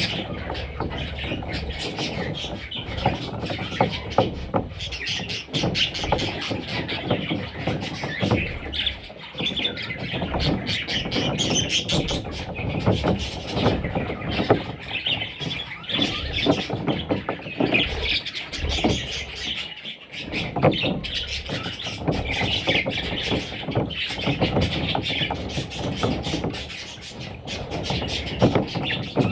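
Budgerigar chicks chirping and squealing continuously, over a constant patter of clicks and scratches.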